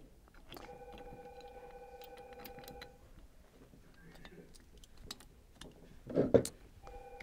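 Small clicks and taps of screws being handled and set by hand into the plastic drive cap of a Clack WS2 softener valve, with a louder knock about six seconds in. A faint steady tone runs for about two seconds near the start and comes back near the end.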